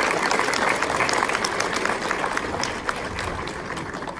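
Audience applauding, the clapping thinning and fading toward the end.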